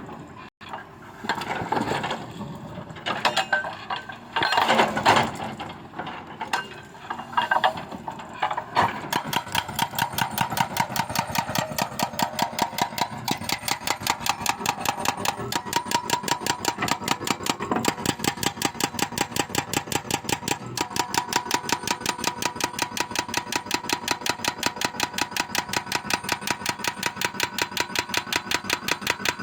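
A machine running: uneven clattering bursts for the first third, then a steady, even, rapid pulsing of about four to five beats a second over a constant high hum.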